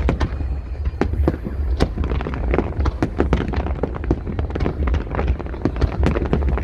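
Fireworks going off in quick succession: many sharp bangs and crackles, several a second, over a continuous low rumble.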